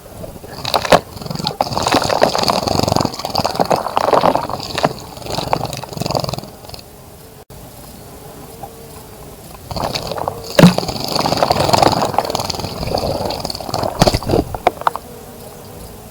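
Small bird splashing in a bird bath, in bouts of rapid wing-flicking and water spattering with a pause of a few seconds near the middle.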